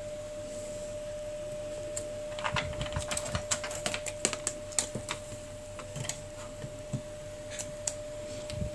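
Quick runs of light plastic clicks and taps as a partly opened Samsung Galaxy Tab 4 10.1 tablet, its cracked glass and loose frame are handled and turned over. The clicks are densest in the middle, with a few single taps later. A faint steady hum runs underneath.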